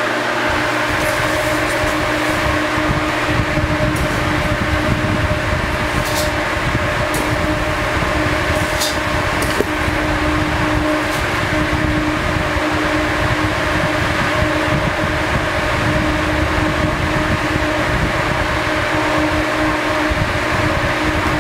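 The tornado chamber's overhead exhaust fan running steadily, a rush of air with a steady hum, drawing the vortex up through the chamber. A few faint light ticks in the first half.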